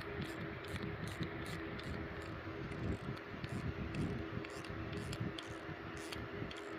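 Steady hum and hiss of background noise, with light, irregular high-pitched ticks scattered through it.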